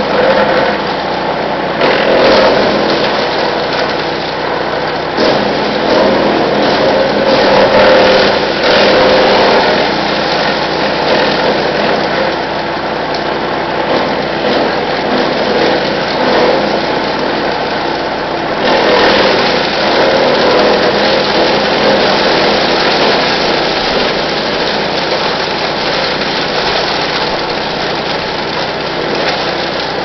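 Brush Master 3-inch wood chipper running at full speed while branches are fed into its chute: a steady engine drone with irregular crackling and snapping as the blades chew through the brush, the loudness rising and falling as each bundle goes through.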